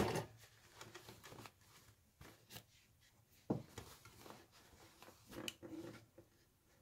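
A domestic sewing machine's stitching stops right at the start. Then fabric is handled quietly, with faint rustling and a few small clicks, the sharpest about halfway through, as the layers are checked and repositioned.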